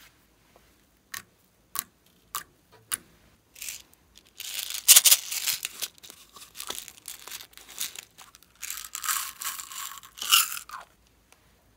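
Plastic packaging being handled: four sharp plastic clicks, then loud crinkling and crackling as a plastic capsule and a bag of small plastic pearl beads are opened. Near the end the beads pour from a small plastic bottle with a light, steady rattling hiss.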